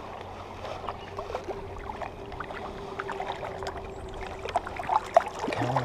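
Swollen creek water rushing and lapping close by, with small splashes and drips as a little hooked brown trout is drawn in by hand at the surface.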